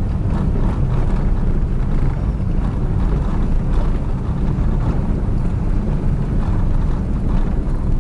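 Steady low rumble of wind buffeting the microphone, mixed with the running noise of a moving vehicle.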